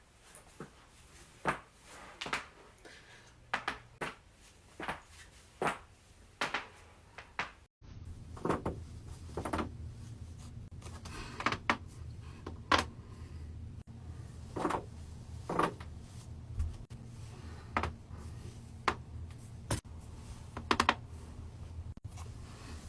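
Joints cracking during chiropractic adjustments of the neck and back: a series of sharp, short pops, irregularly spaced, some coming in quick pairs. About eight seconds in, the background changes to a steady low hum.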